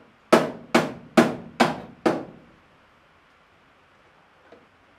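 Five sharp hammer blows about two a second, each ringing briefly, fastening metal to a wooden post.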